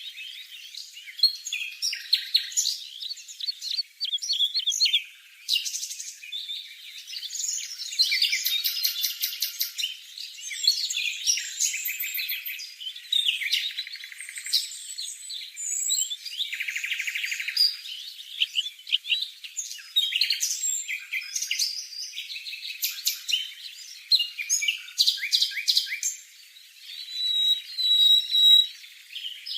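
A songbird's high-pitched song: quick, varied chirps, twitters and rapid trills running on with short pauses, and a few clear repeated whistled notes near the end.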